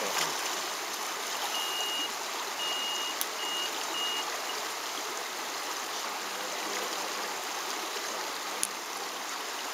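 Backpack electrofisher giving four high, steady beeps a couple of seconds in, the first two longer than the last two: the unit's audible warning that it is shocking. Stream water runs steadily underneath.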